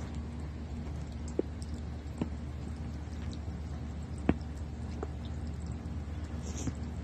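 Water dripping and small taps from a magpie in a plastic-tub birdbath: a few sharp clicks, the loudest about four seconds in, over a steady low hum.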